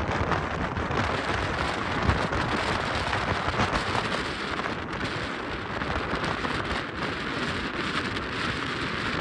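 Steady rushing wind and road noise from a moving car, the airflow buffeting the microphone.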